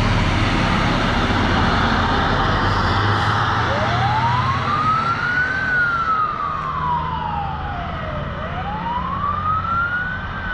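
Fire department ladder truck pulling away with its engine running, then its siren starts about three and a half seconds in: a slow wail that rises, falls and rises again, fading a little as the truck drives off.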